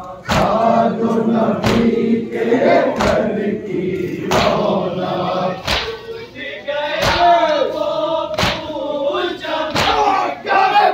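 A crowd of mourners chanting a nauha (Shia lament) together, with a sharp unison slap of chest-beating (matam) about every second and a half.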